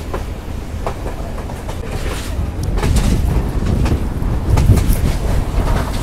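Passenger train running along the track, heard from its open doorway. Strong wind buffets the microphone over the low rumble of the wheels, and wheel clicks over the rail joints grow louder and more frequent from about halfway.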